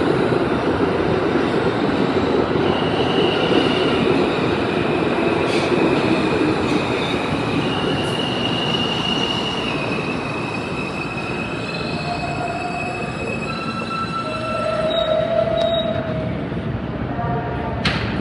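R160A subway train rolling into the station and slowing to a stop: a steady rumble of steel wheels on rail, with high squealing tones that shift in pitch. Lower steady tones come in during the second half as it brakes.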